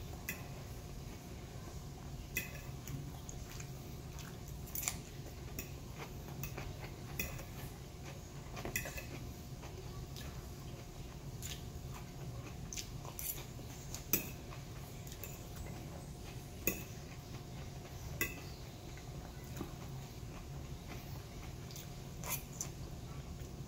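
Metal fork clinking and scraping on a plate as forkfuls of salad are picked up, with crunchy chewing of lettuce in between. The clinks come irregularly, the sharpest two about two-thirds of the way through, over a steady low hum.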